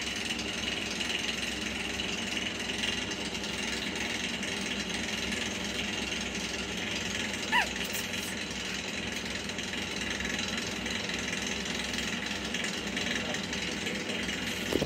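A steady mechanical drone, like a small motor running, with one short high squeak about seven and a half seconds in.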